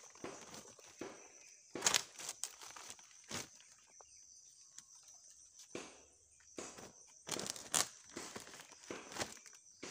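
Pieces of split firewood knocking and clattering as they are pushed by hand into a woven plastic sack, with the sack crinkling. The clatters come irregularly, the loudest about two seconds in and around eight seconds.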